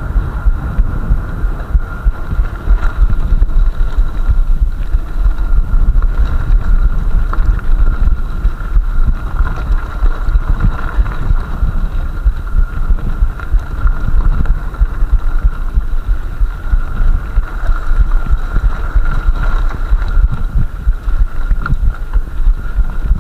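Mountain bike riding over gravel and grass as heard by a camera mounted on the bike or rider: a loud, fluttering low rumble of wind buffeting and rolling vibration on the microphone, with a steady thin high tone underneath.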